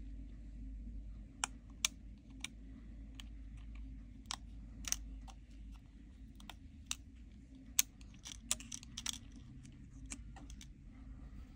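Irregular light clicks and taps of small tools and phone parts being handled, about a dozen spread unevenly, a cluster of several near the end. A low steady hum lies underneath.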